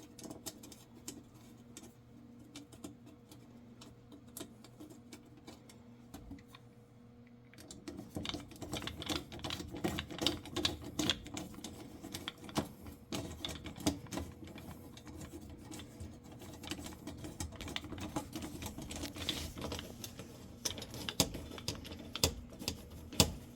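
Rapid, irregular light clicking and ticking of small screws, nuts and sheet-metal igniter brackets being handled and fastened, over a faint steady hum. It is sparse for the first several seconds and turns into a dense run of clicks from about eight seconds in.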